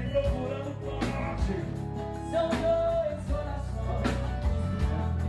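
Live sertanejo band music: a man and a woman singing a duet into microphones over drums and bass, with regular drum hits and long held sung notes.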